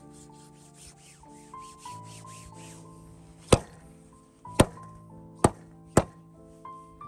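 Four sharp cleaver chops through a goose carcass into a wooden stump chopping block, starting about halfway through, after a few seconds of faint rubbing as the carcass is handled. Soft background music plays throughout.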